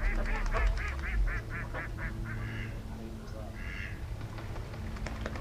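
Ducks quacking: a rapid run of about ten quacks, some five a second, fading over the first two seconds, then two longer single calls.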